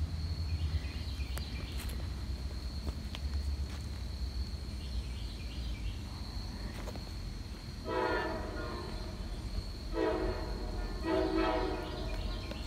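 Diesel locomotive horn sounding three blasts, the middle one shorter, from a train not yet in sight.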